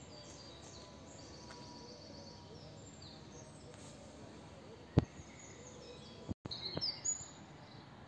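Songbirds chirping and singing in short high calls over a faint steady background. There is a single sharp click about five seconds in, and a brief dropout just after six seconds, followed by louder calls.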